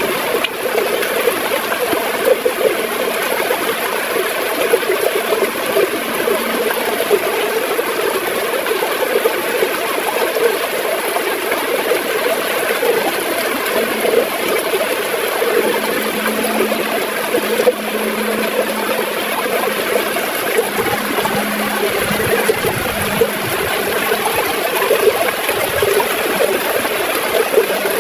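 River water gurgling and splashing over rocks, a steady, dense rush with a busy bubbling flutter. A faint low hum joins it about halfway through.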